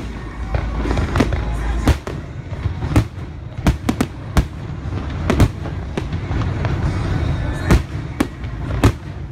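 Aerial fireworks shells bursting overhead, about a dozen sharp bangs at irregular intervals over a continuous low rumble.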